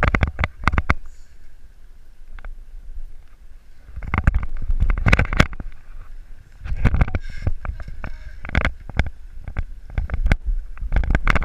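Wind rushing over and buffeting a body-mounted action camera's microphone in heavy gusts as the bungy jumper swings and bounces on the cord. It eases off about a second and a half in, then picks up again about four seconds in.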